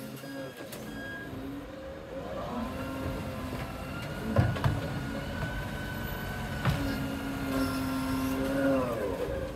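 Isuzu garbage truck's engine revving up to drive its hydraulic side-loader arm, holding a steady whine while the arm lifts a wheelie bin, then dropping back near the end. Two sharp clunks from the bins midway and about two seconds later.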